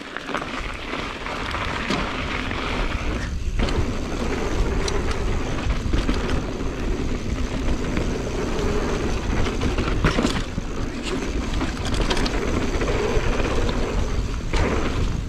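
Mountain bike riding along a dirt trail: steady tyre and wind noise with a heavy low rumble, broken by a few sharp knocks from bumps in the trail.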